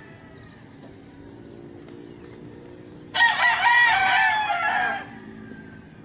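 A rooster crows once, loudly, about three seconds in, the call wavering and lasting about two seconds, over a faint steady background.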